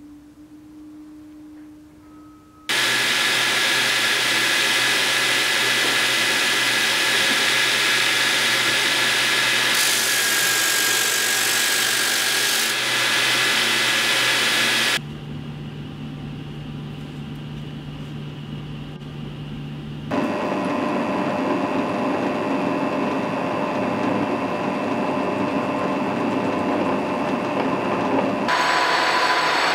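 Metalworking machine tools running in turn. After a quiet first few seconds with a faint steady hum, a machine cutting steel runs loud and steady for about twelve seconds. A quieter steady hum follows for about five seconds, then a drill press runs loud and steady drilling into a steel block, and the sound changes again near the end.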